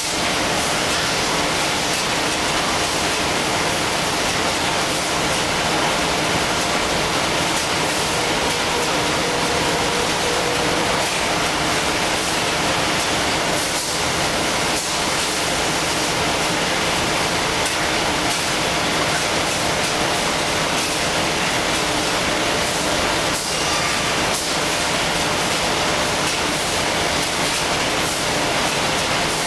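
Facial tissue production line machinery running: a steady, dense mechanical din with a faint hum and a few light ticks.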